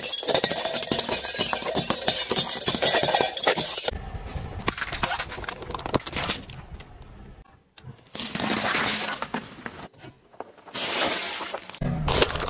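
A car tyre crushing a white plate: dense crackling and shattering over the first few seconds, then sparser crunches and clicks. Later come two short bursts of crushing noise as other objects are squashed under the tyre.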